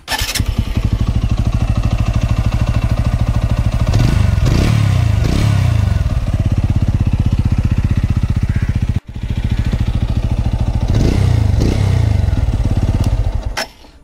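TVS Apache RTR 200 4V single-cylinder engine running hot, heard close at the engine, with a light tick-tick that only shows up once the engine is fully warm. The throttle is blipped a few times about four seconds in and again about eleven seconds in, and the sound breaks for an instant about nine seconds in. The owner takes the ticking for the normal nature of the Apache's engine, not a fault.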